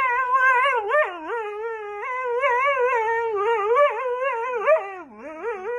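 Dog howling and whining in one long, unbroken stream, its pitch wobbling up and down throughout and dipping lower about five seconds in.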